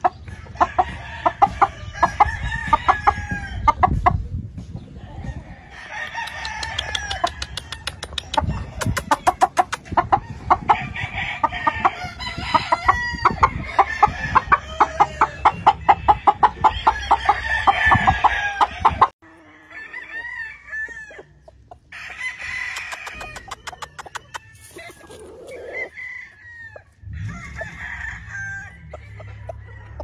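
Gamefowl roosters crowing repeatedly over rapid, steady clucking. About two-thirds of the way through the sound drops abruptly, leaving quieter, sparser calls.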